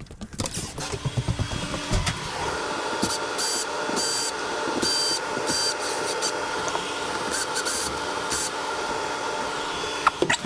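A small electric power-tool motor, such as a drill, running steadily for several seconds, with short higher-pitched bursts over the middle.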